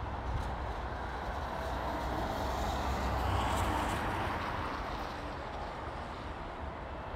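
A vehicle passing: a noise that swells to its loudest about three and a half seconds in and then fades, over a steady low rumble.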